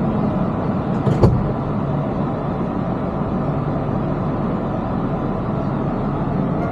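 Steady vehicle running noise, mostly low rumble, with a single sharp knock about a second in.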